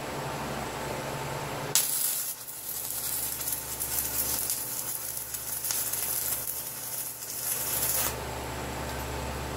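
Electric arc welding of a steel pipe sleeve onto a tractor grader blade's frame: an even hiss that starts abruptly about two seconds in and stops abruptly about eight seconds in.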